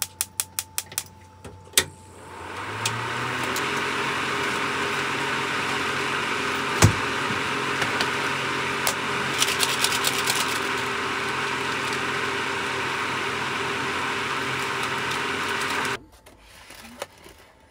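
A quick run of sharp clicks, then a small electric motor spins up, runs steadily with a hum and a hiss for about fourteen seconds, and cuts off abruptly.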